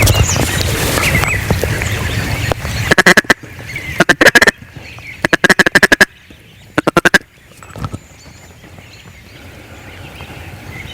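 Hand-blown duck call working a rapid chattering feed call, in four short loud bursts about three to seven seconds in, over a steady rustle and breeze.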